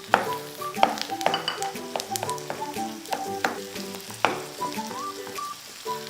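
Diced chicken breast sizzling as it fries in hot oil with onion in a frying pan, with several sharp knocks as it is stirred and turned. Background music plays throughout.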